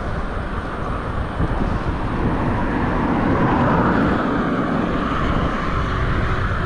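A car overtaking the bicycle: its tyre and engine noise swells to a peak about four seconds in, then eases. Under it runs a steady wind rumble on the microphone from riding.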